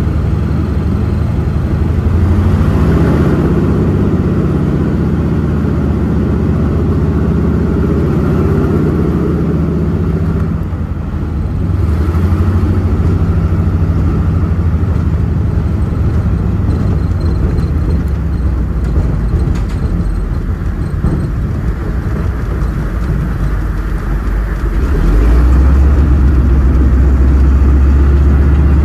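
de Havilland Canada DHC-2 Beaver floatplane's radial piston engine running steadily at low power while the plane taxis on the water. The engine dips briefly about eleven seconds in and gets louder from about twenty-five seconds in.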